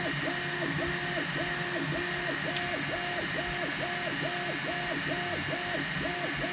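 Elegoo Neptune 4 Pro 3D printer running with a repeated squeaking tone that goes up and down in pitch about three and a half times a second, as with an axis moving back and forth. A steady high whine runs underneath.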